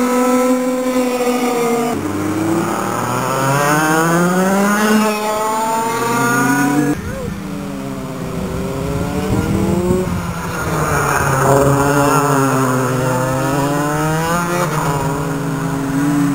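Several racing kart engines running hard around a circuit. Their pitch rises and falls over and over as the karts accelerate out of corners and back off into them, with more than one engine heard at once.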